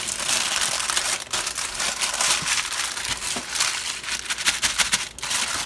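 Crinkling and rustling of plastic wrapping as a raw sausage log is rolled up in it and its seams pressed closed.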